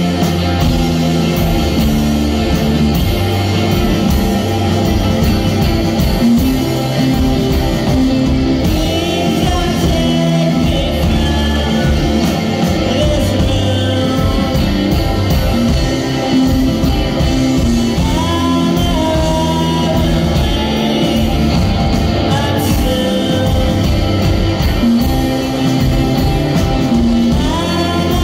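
Live rock band playing a song: electric guitars, bass and drums, with a sung vocal line.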